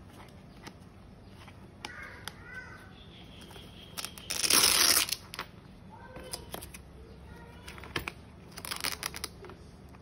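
Hook-and-loop strap on a fabric knife bag pulled apart in two loud rips, one about halfway through and one near the end, amid light rustling of fabric and plastic sheeting.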